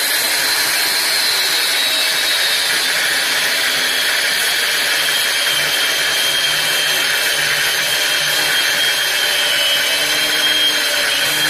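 Angle grinder with a cutting disc cutting into the body of a large electric motor: a steady high whine over a dense hiss, slowly dropping a little in pitch.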